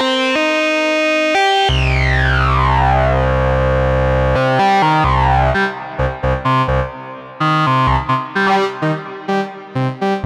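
Moog Subsequent 37 analog synthesizer playing a hard-synced patch. A low note starts about two seconds in, and a bright sweep in its tone falls slowly over a couple of seconds as oscillator 2 glides back under hard sync. After that comes a run of short, detached notes.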